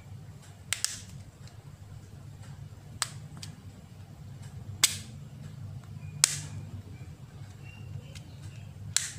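Plastic clips of an Oppo F5's back cover snapping loose as it is pried off by hand: about six sharp snaps at irregular intervals, the loudest around the middle, over a low steady hum.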